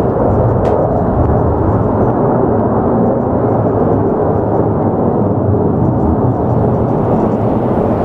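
Jet aircraft flying over, a loud steady rumble.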